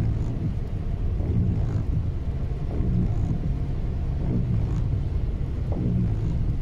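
Steady low rumble of a car driving on a wet highway in heavy rain, heard from inside the cabin, with the windscreen wipers sweeping about every one and a half seconds.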